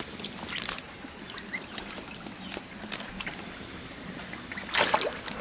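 A duck bathing in a shallow plastic tub of water, paddling and splashing in small spatters, with a louder burst of splashing near the end.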